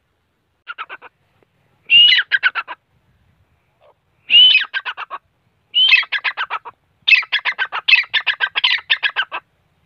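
Grey francolin calling in four loud bouts after a few faint notes. Each bout opens with a rising note and breaks into a fast run of short, shrill notes, about eight a second. The last bout is the longest.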